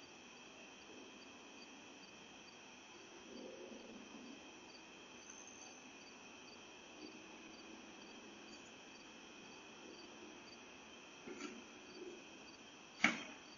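Crickets chirping steadily in a faint, even chorus. A single sharp clack sounds near the end.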